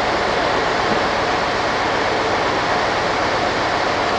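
Steady, loud rumble and hiss of heavy machinery running while a derailed train car body is hoisted, with faint steady tones in it.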